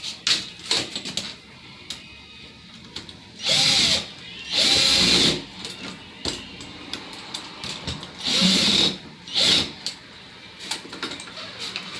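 Hyper Tough power drill driving screws into the door hardware in four short bursts. Small clicks and handling knocks come between the bursts.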